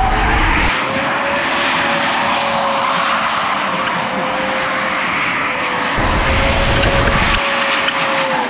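A car being driven, its engine holding a steady, slightly wavering note over road and wind noise. A heavy low rumble fills the first second and comes back for a moment about six seconds in.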